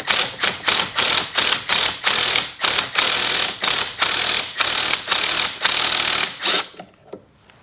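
Impact wrench hammering in repeated bursts, driving a two-jaw puller's forcing screw to press a CV joint's inner race off the axle shaft; it stops near the end.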